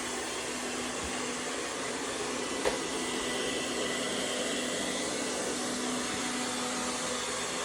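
ONSON BR151 robot vacuum running steadily during zigzag cleaning: a constant suction whir over a steady motor hum, a little loud.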